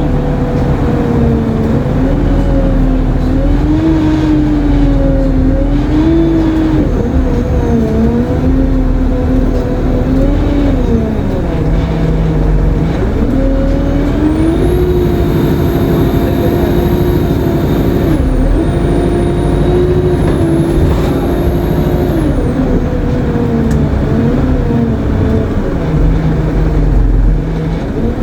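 Alexander Dennis Enviro 200 MMC bus engine pulling away and accelerating, its note rising and dropping back with each gear change. About halfway through a high-pitched turbo whine rises in, holds for several seconds, and falls away.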